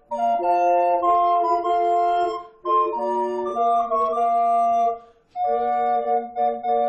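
Instrumental hymn tune played in sustained four-part chords with a flute-like, organ-style tone, phrase by phrase with short breaks between phrases.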